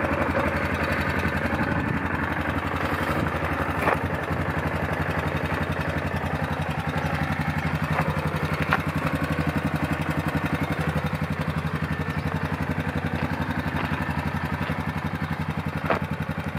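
Yamaha Ultramatic 450 quad bike's single-cylinder four-stroke engine idling steadily, with a few brief clicks.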